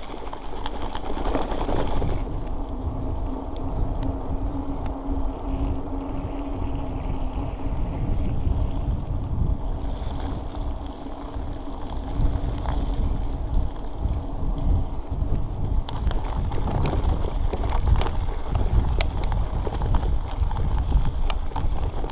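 Bicycle riding over a dirt and gravel road, with wind buffeting the camera microphone. A steady hum runs through the middle stretch, and sharp ticks of gravel come in the last few seconds.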